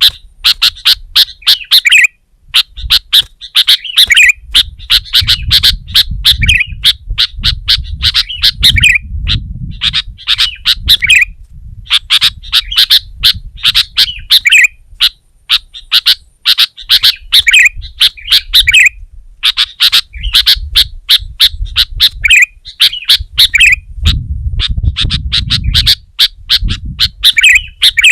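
Sooty-headed bulbul calling loudly and insistently: short phrases of rapid, sharp notes repeated again and again with brief pauses between them.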